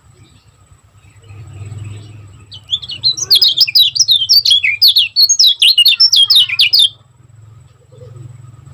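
Kecial kuning songbird singing a fast, tightly packed run of high chirping notes for about four seconds, starting about two and a half seconds in.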